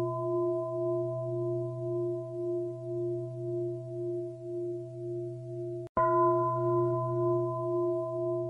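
A large singing bowl, struck and left ringing with a deep, wavering tone that pulses about two to three times a second. It is struck afresh about six seconds in, with a sharp attack, and rings on.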